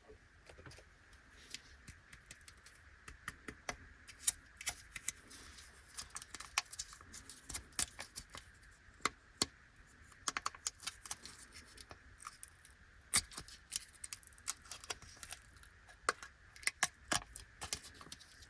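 Plastic packaging of a fruit jelly snack being handled and opened: a run of sharp, irregular crinkles and clicks.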